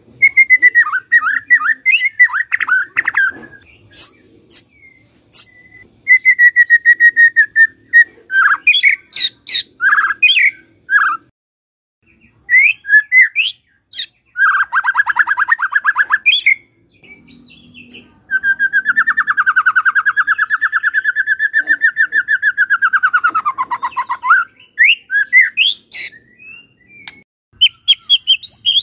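White-rumped shama singing varied whistled phrases and sharp chirps. Two-thirds of the way through it gives a long, fast rattling trill of about six seconds that drops in pitch at its end.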